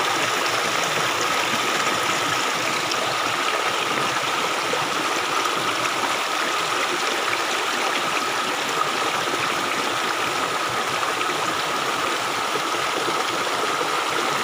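Small rocky stream running, its water rushing over stones in a steady noise.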